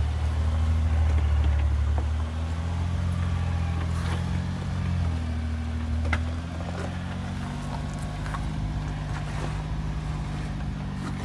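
Toyota Tacoma's engine running at low revs while the truck crawls over rocks in low-range crawl gearing. It grows quieter after about two seconds as the truck pulls away, with occasional sharp clicks and knocks.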